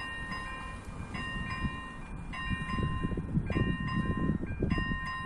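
Electronic ZV01/ZV02 level-crossing bell ringing its repeating chime, a short group of tones about once a second, with a low rumble underneath. It signals that the crossing is activated and a train is approaching.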